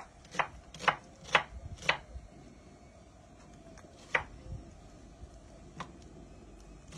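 Kitchen knife chopping an onion on a wooden cutting board: a run of sharp knocks about two a second for the first two seconds, then a pause and two more single knocks later on.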